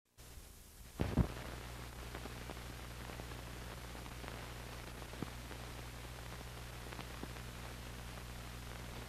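Low steady hum and hiss with scattered crackles and pops, the loudest a pair of pops about a second in: the surface noise of an old film print's soundtrack running over its countdown leader.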